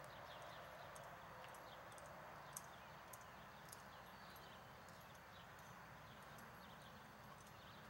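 Near silence: the faint sound of a ridden horse walking slowly on soft arena dirt, with a few light ticks and faint high chirps.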